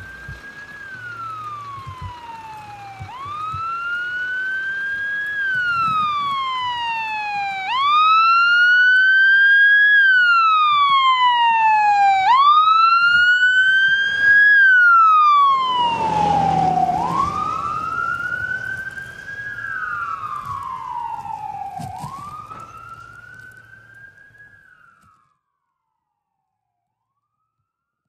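An emergency vehicle's wail siren, rising and falling about every four and a half seconds as the vehicle passes. A rush of vehicle noise comes about halfway through at the loudest point. The siren then fades and cuts off shortly before the end.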